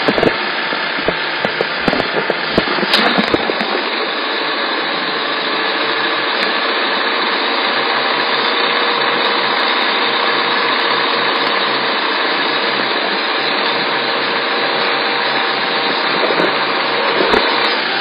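Fiat Panda's air-conditioning compressor making an abnormal steady whirring, grinding noise, with a few knocks in the first few seconds.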